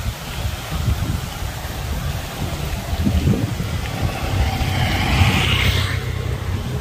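Wind rumbling on the microphone, with a motorbike passing on the road about four to six seconds in.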